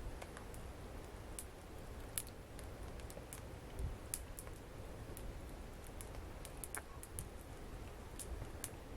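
Wood fire crackling in a fireplace: irregular sharp snaps and pops over a low steady rumble.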